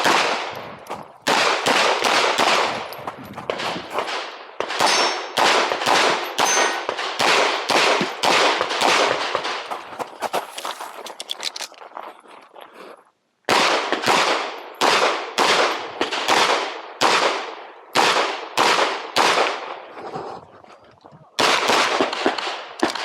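Rapid strings of 9mm pistol shots fired during an IPSC stage run, with two short breaks, about 13 and 21 seconds in.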